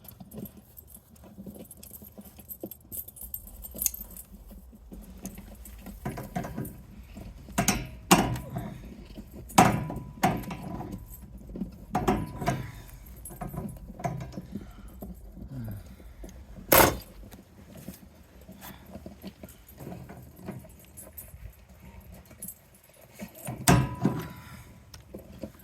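Metal parts of a soda vending machine clinking and knocking as it is taken apart by hand: scattered clanks, some with a short metallic ring, the loudest a sharp bang about two-thirds of the way through and another cluster near the end.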